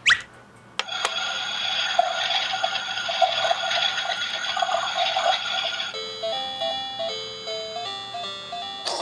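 Cartoon sound effects and music: a quick rising whoosh at the start, then a steady noisy whirring for about five seconds, then a light bell-like melody of short stepping notes, with another swooping effect near the end.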